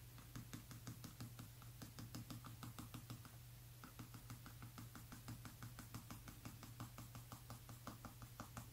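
Derwent Lightfast colored pencil scribbling on paper in quick, even back-and-forth strokes, about five or six a second, faint, with a brief pause midway.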